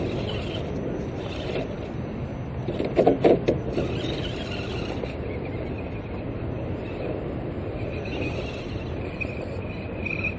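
Radio-controlled scale crawler truck driving and climbing onto a log, its electric motor giving a faint whine over a steady rushing noise. A short burst of loud rumbles comes about three seconds in.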